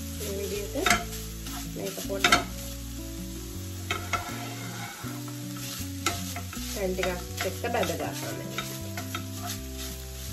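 Seasoned minced chicken sizzling in a nonstick frying pan as a wooden spatula stirs and scrapes it, with sharp taps of the spatula on the pan, the loudest near the start and about two seconds in. Soft background music plays underneath.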